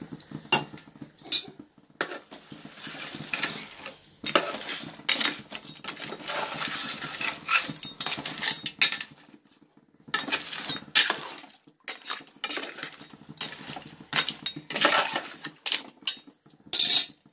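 A ladle stirring crab gravy in a metal pot, with frequent irregular clinks and knocks against the pot and scraping between them.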